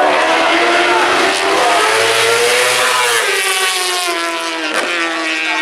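1000cc four-stroke Superbike racing motorcycle engine at high revs as the bike races past; the engine note climbs over the first couple of seconds and then falls away, with a short crack near the end.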